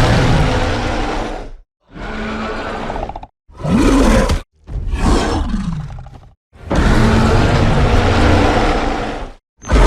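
Creature roars and growls from the film monster Grendel: five separate roars broken by sudden silences, two of them bending up and down in pitch, the longest near the end.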